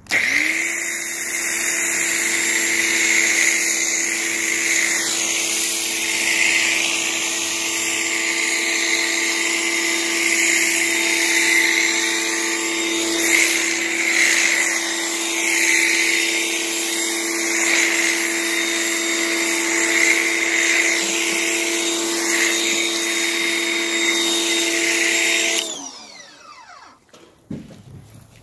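Pressure washer running while it sprays snow foam through a foam cannon: a steady motor whine over the hiss of the spray. It cuts off abruptly near the end and winds down.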